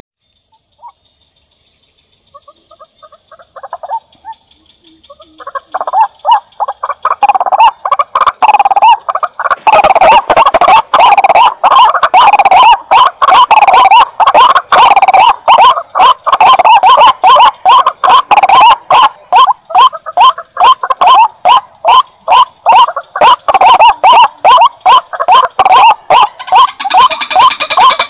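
White-breasted waterhen (ruak-ruak) calling: a few faint calls at first, then from about six seconds in a loud, unbroken run of rapid harsh calls, about three a second.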